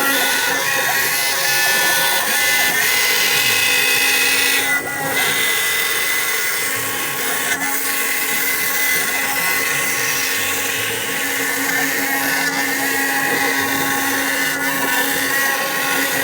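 CNC router spindle running and cutting plastic: a steady whine over a constant machining noise, with a brief dip about five seconds in.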